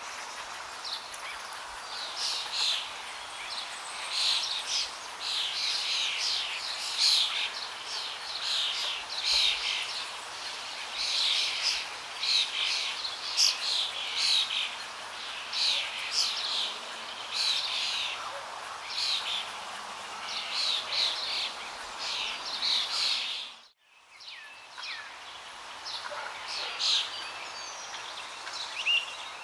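Birds chirping: many short, quick calls in a dense, continuous chorus. About three-quarters of the way through the sound drops out suddenly for a moment, and the chirping comes back fainter and sparser.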